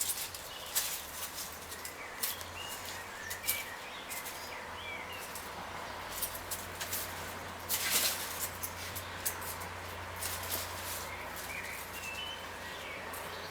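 Kittens playing: a scattered run of light scuffles, taps and rustles, with a few brief high chirps now and then.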